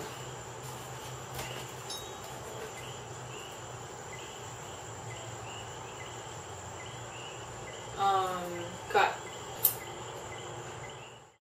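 An insect chirping faintly and evenly, two or three chirps a second, over a steady hiss. About eight seconds in there is a short voice-like sound and then a sharp click, and then the sound cuts off.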